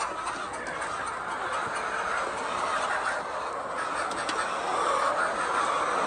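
A flock of laying hens in a poultry house keeping up a steady chorus of clucking and murmuring.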